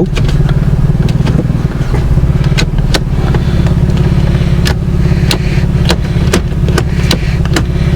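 2006 Toyota Sienna's V6 engine idling steadily, with a scatter of sharp clicks from the gear shifter being moved through its positions.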